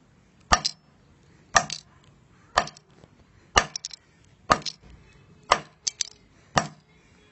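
Hammer repeatedly striking a logic board on a concrete floor, about one sharp blow a second, smashing the board.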